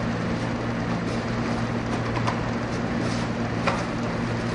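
Steady low hum over hiss, with a few faint clicks about two and three and a half seconds in as plastic containers are handled.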